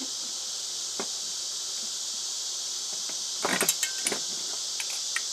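Steady high-pitched katydid chorus, with a single click about a second in and a short burst of clicking and rattling about three and a half seconds in, from hand tools and parts as ceiling fan motors are taken apart.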